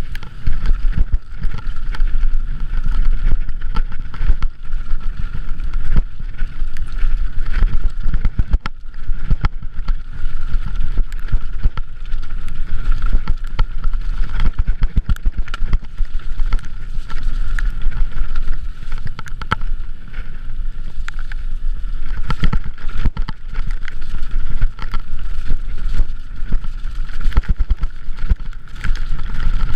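Mountain bike rattling and clattering over rocks and loose stones on a fast descent, with wind buffeting the camera microphone and a steady high whine underneath.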